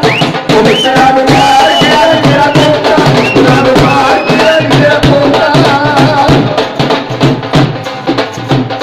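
Loud Punjabi folk music for bhangra dancing, driven by a fast, steady drum beat, with a high melody that glides up into long held notes.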